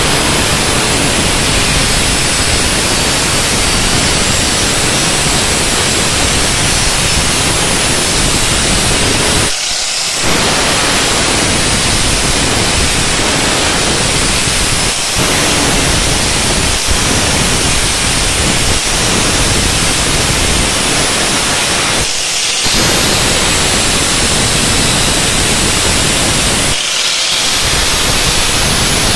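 Handheld electric angle grinder with an abrasive disc grinding rust off a steel scooter muffler, stripping it to bare metal for restoration. The steady, loud grinding hiss dips briefly a few times along the way.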